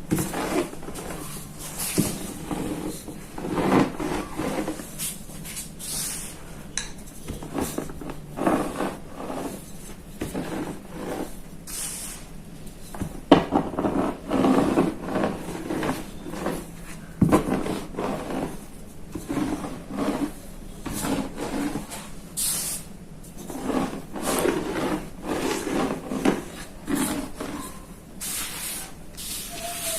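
Rolling pin crushing and grinding blocks of gym chalk: irregular dry crunching and rubbing strokes, with an occasional sharper crack.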